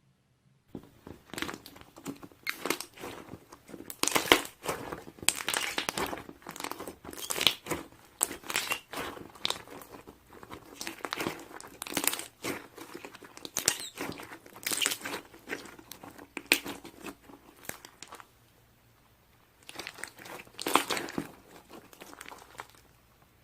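Close, irregular crinkling and rustling, made of many quick crackles, stops for about two seconds near the end and then starts again.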